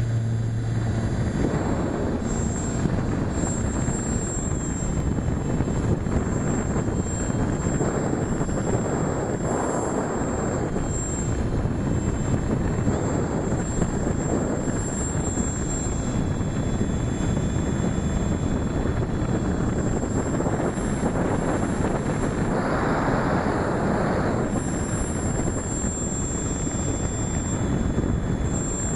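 Steady rushing airflow on a camera riding the wing of an electric RC glider in flight, with a faint high whine underneath throughout.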